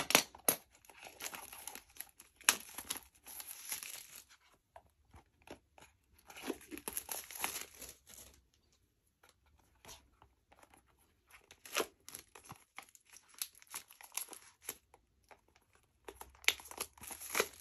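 Small cardboard minifigure boxes handled and picked at by hand: scattered taps and clicks with spells of scraping and crinkling of thin card.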